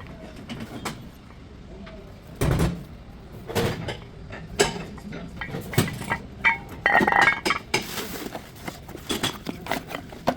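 Tools and steel brake parts being handled during a brake pad and rotor change: irregular metallic clinks and knocks, with a heavier thud about two and a half seconds in.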